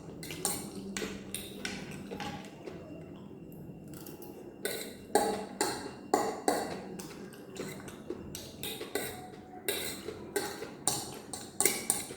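Cutlery clicking and scraping against a plate while eating noodles, in quick, irregular strikes, loudest about halfway through.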